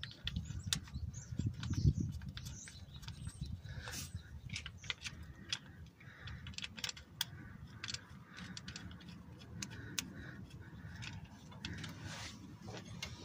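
Scattered light clicks and metallic ticks of a timing-chain guide rail and its bolts being fitted and threaded in by hand on an engine block.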